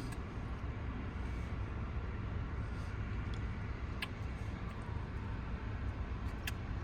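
Steady low rumble of an idling vehicle, with a couple of short clicks about four and six and a half seconds in.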